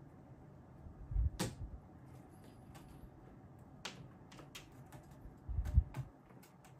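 Cats batting at dangling toys on a carpeted cat tree: scattered light taps and clicks, with two heavier knocks that carry a dull thump, about a second in and again near the end.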